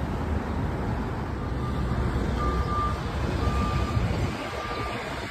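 Low rumble of a vehicle engine or traffic, with a single-pitched electronic warning beep repeating about once a second from about a second and a half in, like a vehicle's reversing alarm.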